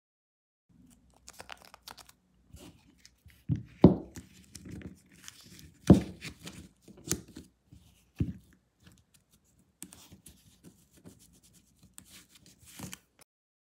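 Hands handling a stainless steel Ridge wallet with its elastic cash strap: folded paper bills rustle and crinkle as they are worked under the strap, with sharp clicks and knocks from the metal wallet, the loudest about four and six seconds in.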